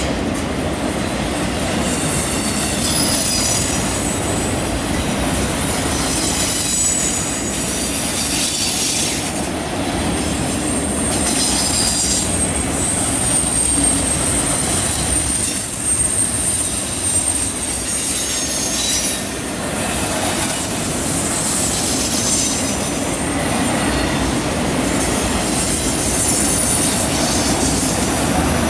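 Freight train of autorack cars rolling past on a curve: a steady rumble of wheels on rail, with thin, high-pitched wheel squeal from the wheels rounding the curve that comes and goes.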